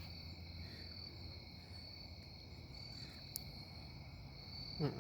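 Night insects, crickets by the sound, chirping in a steady high drone, with a single faint click about three and a half seconds in and a short voice sound at the very end.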